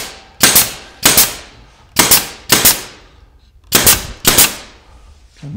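Pneumatic narrow-crown stapler firing six times, driving 3/4-inch small crown staples through a thin cabinet back panel into the cabinet sides. Each shot is a sharp crack with a brief air hiss, the shots coming irregularly about half a second to a second apart.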